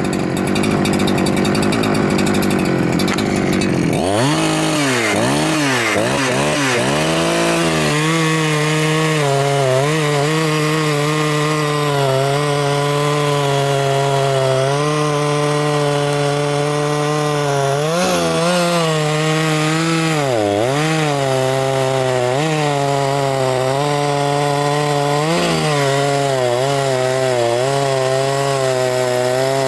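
Two-stroke chainsaw engine of a Huyosen 6524 (a Husqvarna 365 clone) running at high revs, then dropping to idle about four seconds in; the idle hunts at first, settles, and dips briefly a few times. The carburettor is being tuned, with the owner judging the low-speed mixture too lean.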